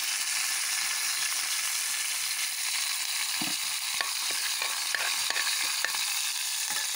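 Curry leaves sizzling in hot oil with mustard seeds, cumin and black pepper in a metal kadai, a steady frying hiss. From about three and a half seconds in, a spatula stirring in the pan adds scattered sharp clicks.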